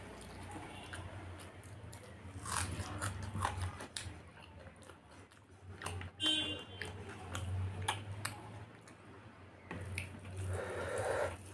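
Close-up mouth sounds of a person eating rice and fried chicken offal by hand: wet chewing and smacking with scattered short clicks.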